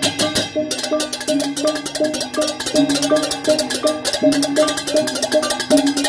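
Balinese gamelan for a barong procession: ceng-ceng hand cymbals clashing in a fast, steady rhythm over a repeating figure of ringing notes on small hand-held gongs. The cymbal strokes thicken into a dense clatter about a second in.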